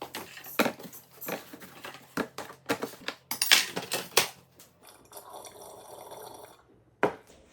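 Kitchen clean-up clatter: a quick run of knocks and clunks as dishes and kitchen items are handled and put away, then about a second and a half of steady hissing, then one more knock near the end.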